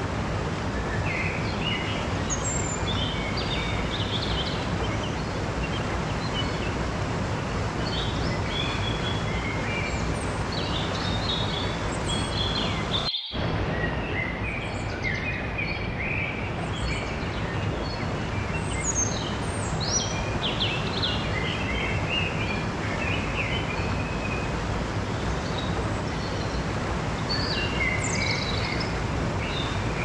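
Mountain stream rushing over rocks in a steady whitewater noise, with small birds chirping repeatedly above it. About halfway through, the sound cuts out for an instant.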